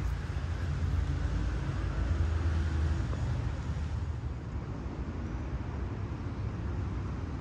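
City street traffic: a steady low rumble of passing cars, swelling a little about two seconds in.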